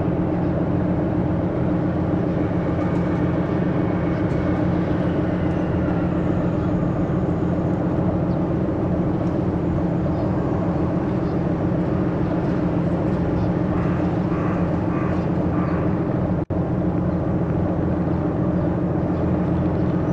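A yakatabune's engine runs steadily as the boat cruises, making a low, even drone. The sound cuts out for an instant about sixteen seconds in.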